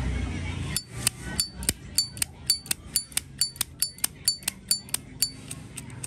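1996 chrome Zippo lighter's lid being flicked open and snapped shut over and over: a quick run of sharp metallic clicks with a bright ring, about four a second.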